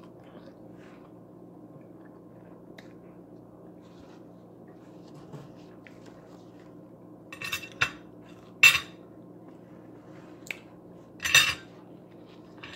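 A fork clinking against a plate in a few short, sharp clicks, mostly in the second half, over a steady low hum.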